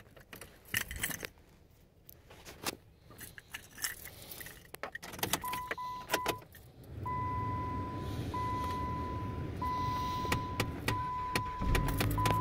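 Keys jangling and clicking at the ignition of a 2013 Dodge Avenger, then a few short dashboard chime beeps. About halfway in a steady low noise starts as the engine is cranked on a cold morning, turning over slowly with a cold battery. A long dashboard chime repeats over it, and a low thump comes near the end.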